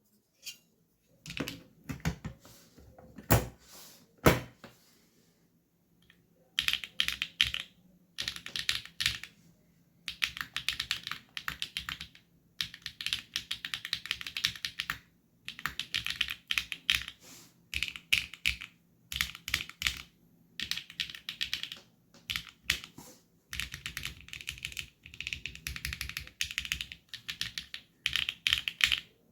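Neo 80 mechanical keyboard with linear switches being typed on. First come a few separate keystrokes and two louder single strikes, then fast typing in runs of one to two seconds separated by brief pauses.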